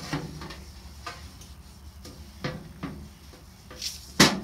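A steel chainsaw bar, a vintage Homelite C-5 solid-nose bar, knocking and clicking against a metal grill lid as it is rubbed down with an oily rag, about half a dozen irregular knocks with a brief metallic ring. The loudest knock comes near the end.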